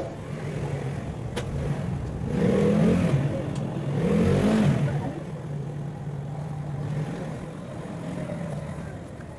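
A motor vehicle engine running, swelling louder twice with rising and falling pitch as it revs or passes, then settling to a steadier hum that fades near the end.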